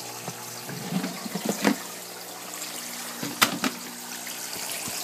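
Water spraying from slits in a recirculating hose ring and splashing into a plastic reservoir, over the steady hum of a pump. A few short knocks come about one and a half and three and a half seconds in.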